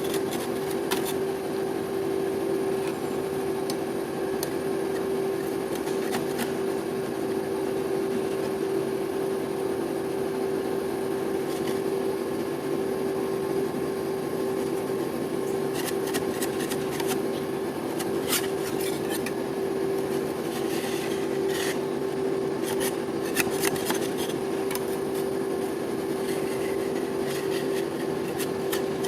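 Metal spatulas scraping and rubbing on the frozen plate of an ice cream roll stand, with scattered sharp taps of the blades, over a steady machine hum.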